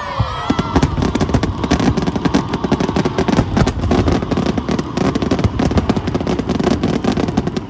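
Fireworks display going off: a dense, rapid crackle of many small bursts over a low rumble of booms.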